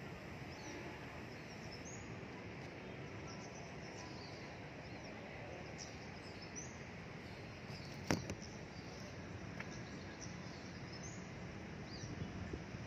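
Steady urban background hum with small birds chirping again and again, high and brief, and a single sharp click about eight seconds in.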